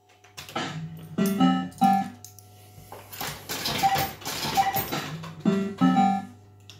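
Bell Fruit Cash Explosion fruit machine playing its electronic tunes and bleeps as the reels spin and stop. Short runs of notes come near the start and again near the end, with a busier, jangly passage in the middle, over a low steady hum.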